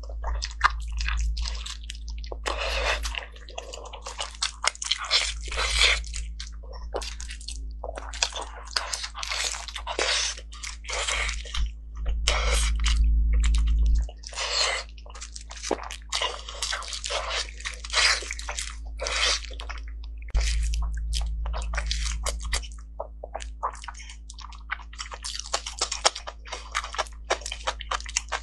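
Close-miked chewing and biting of braised pork skin rolls: many short, irregular mouth clicks and smacks in quick clusters, over a low steady hum.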